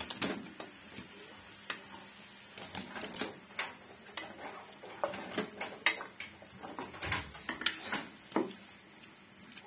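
A spatula knocking and scraping against a glass bowl as boiled carrot pieces are pushed out into a wok of sugar syrup, then stirring them in the pan: scattered light clicks and knocks at irregular moments.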